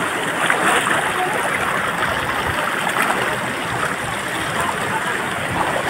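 Shallow hill stream running over rocks: a steady rush of flowing water.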